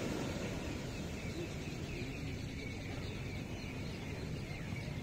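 Steady, even rush of ocean surf on a sandy beach, deepest in the low end, with no single wave standing out.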